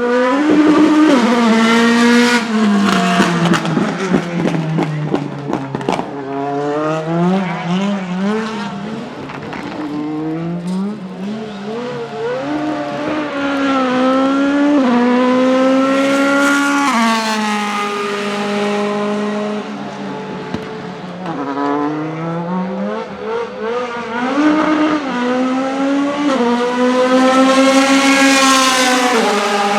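Mercedes-AMG C63 DTM race car's 4.0-litre V8 running hard. The revs climb again and again, drop abruptly at each upshift and slide down as it slows. The loudest, highest climb comes near the end.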